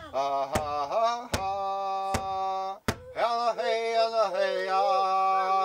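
A man singing a long-held chant in a Native American style, struck through by a steady drum beat about every three-quarters of a second. The drum stops about three seconds in and the voice goes on alone, its pitch wavering up and down.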